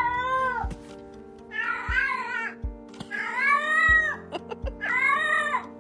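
A cat meowing four times, drawn-out calls that rise and fall in pitch, the third the longest, over background music with a steady low beat.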